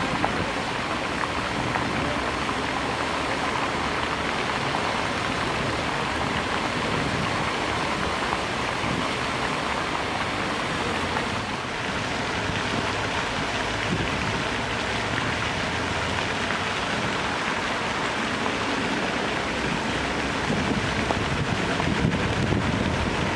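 Fountain jets splashing into an open basin: a steady rush of falling water, dipping briefly about halfway through.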